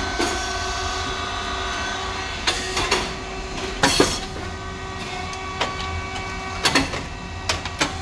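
Rice cake popping machine running: the electric motor and hydraulic pump give a steady hum, broken by several sharp mechanical clicks and knocks, the loudest about four seconds in.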